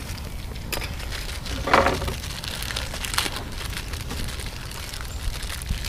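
Crinkling and rustling of packaging and small repair parts being handled, in a series of short strokes with a louder one about two seconds in. A steady low rumble of wind on the microphone runs underneath.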